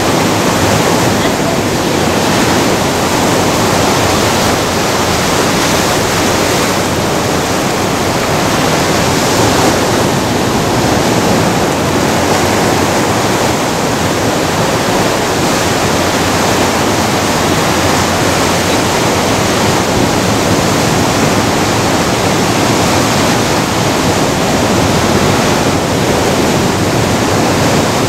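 Ocean surf breaking and washing in over a rocky shore: a loud, steady rush of waves that swells a little now and then.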